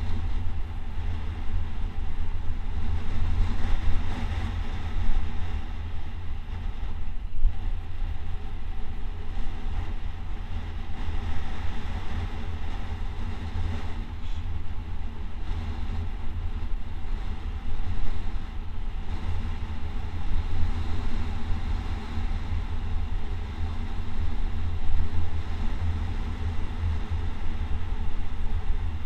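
Wind buffeting the microphone of a camera moving fast downhill: a steady, heavy low rumble that keeps shifting in strength.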